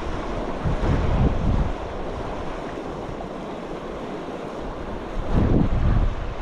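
Wind buffeting the microphone over a steady rush of flowing water, with two stronger gusts of low rumble, about a second in and again near the end.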